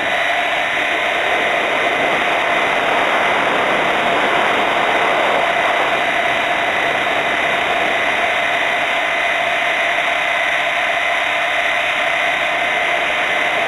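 Hurricane 550 RC helicopter's motor, drivetrain and rotors heard from a camera mounted on the airframe: a steady mechanical whine over a rushing hiss, holding constant in flight.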